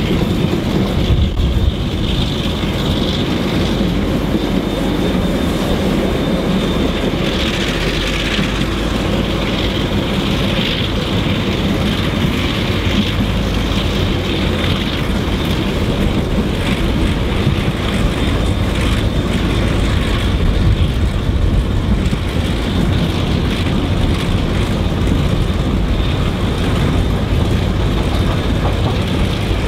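Steady running rumble of trains in motion, heard from a carriage window as two trains run side by side.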